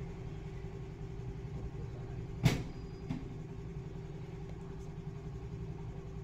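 Steady low mechanical hum, like a motor running, with one sharp click about two and a half seconds in and a fainter click just after.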